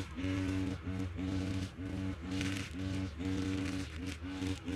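Background music: a melody of short held notes, stepping in pitch every third to half second, over a steady low drone.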